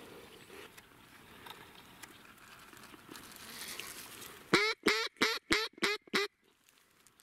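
A quick run of about seven loud duck quacks, close and evenly spaced at roughly four a second, starting about four and a half seconds in and stopping abruptly.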